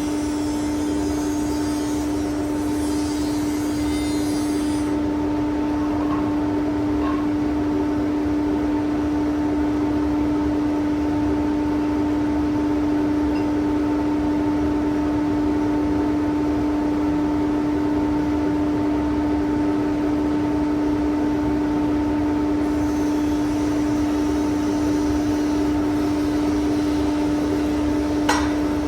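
A machine running steadily, a constant pitched hum that holds one note throughout, with a small click near the end.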